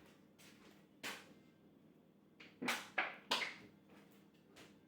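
Handling noise of a large plastic drinks bottle being fetched and handled: a few short sharp knocks and scrapes, one about a second in, three close together in the middle and one more near the end.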